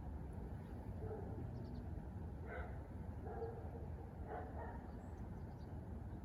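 A dog barking a few times, faint and distant, over a steady low background rumble.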